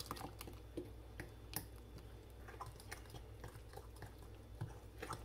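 Pancake batter being stirred by hand in a glass mixing bowl, the utensil clicking and scraping irregularly against the glass.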